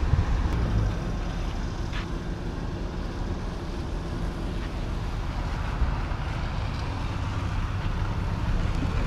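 Low, steady rumble of a pickup truck's engine left idling, with a car driving up and the sound building a little near the end.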